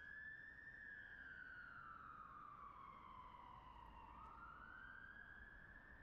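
Faint emergency-vehicle siren wailing in slow rise-and-fall sweeps: the pitch peaks just under a second in, falls for about three seconds, then climbs again near the end, over a low background rumble.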